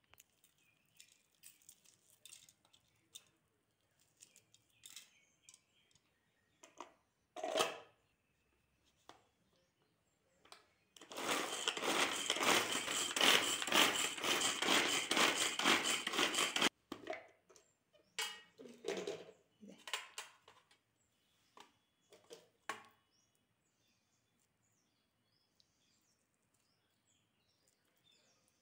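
Pull-cord vegetable chopper (Pigeon) worked by hand for about six seconds, its plastic blades spinning and clattering as they chop shallots, garlic and green chilli in the bowl. Before and after it, a few light knocks of ingredients and the lid being handled.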